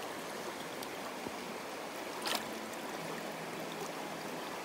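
Shallow river water rushing and trickling steadily around a landing net held in the current. A short sharp splash comes about two seconds in, and a faint low steady hum joins in the last second and a half.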